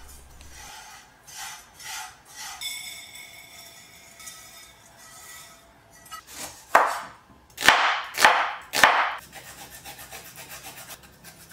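Roasted dry vermicelli tipped out of a frying pan onto a plate in a few loud rustling, sliding rushes. Near the end, fresh ginger is rubbed on a small hand grater in quick, even strokes.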